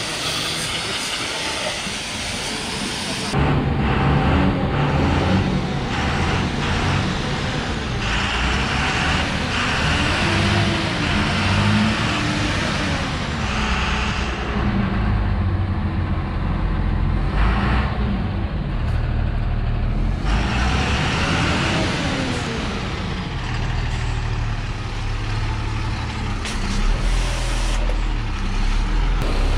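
Gaocheng GC-RS3 2300 W electric pressure washer at work: a hiss of the water jet for the first few seconds, then the machine's motor and pump drone takes over, its pitch wavering up and down, with the spray hiss coming and going.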